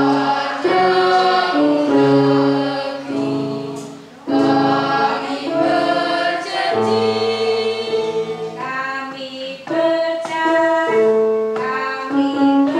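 School choir rehearsing, singing long held notes in several parts at once, with a short break between phrases about four seconds in.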